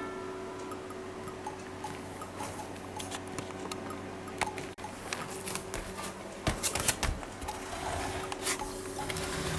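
Light clicks and knocks of a small dish of dry cat food being handled and set down on tatami, loudest about six and a half to seven seconds in.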